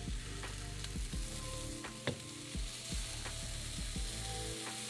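Pancake batter sizzling in a very hot, preheated non-stick frying pan as more is poured in: a steady hiss with scattered light crackles.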